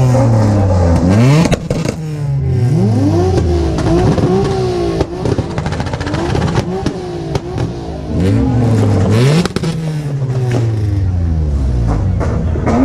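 Car engine revved hard again and again, its pitch climbing and dropping in several blips a few seconds apart, with sharp crackles among the revs.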